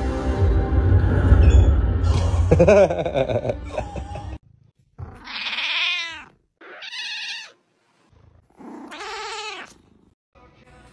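A black-and-white domestic cat meowing three times, each long call rising then falling in pitch, about a second apart. Before that, a loud film soundtrack with music and a deep rumble plays from a television and cuts off suddenly about four seconds in.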